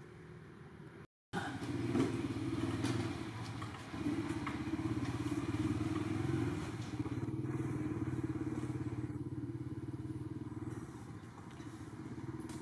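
A small engine running steadily, coming in abruptly about a second in.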